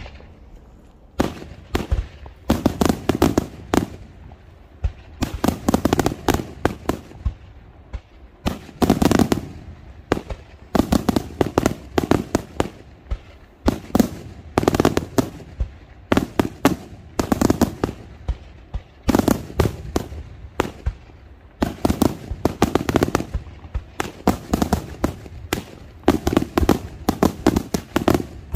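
Daytime aerial fireworks shells bursting overhead in dense volleys of sharp bangs and crackles, a fresh cluster every second or two.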